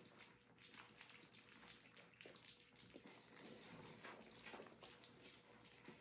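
Three-week-old French bulldog puppies lapping and smacking at soft food: a faint, continuous patter of quick wet clicks.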